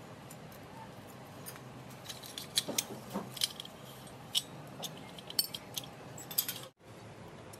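Small iron cookware pieces clinking together as they are handled, with a run of sharp clinks from about two seconds in, over the rustle of shredded-paper packing. The sound cuts out for an instant near the end.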